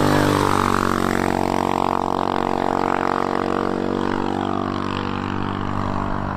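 Hawk 250 DLX's single-cylinder four-stroke engine wailing at high revs near the bike's top speed, a steady drone that slowly fades as the bike rides away. The small engine has nothing more to give.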